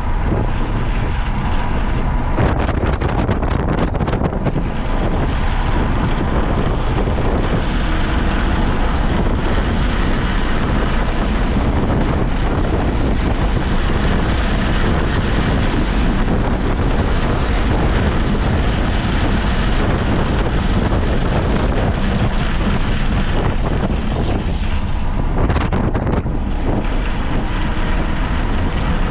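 Car at speed on a race track, heard onboard: engine running hard under load over heavy wind and road noise buffeting the microphone.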